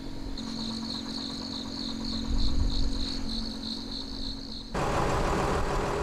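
An insect's steady, evenly pulsing high trill over a faint low hum, cutting off abruptly about three-quarters of the way in. It gives way to the steady noisy running of a small fishing boat's engine.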